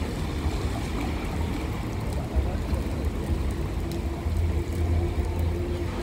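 Rain on a wet city street, with the hiss of a car's tyres on the wet road and a steady low rumble of traffic.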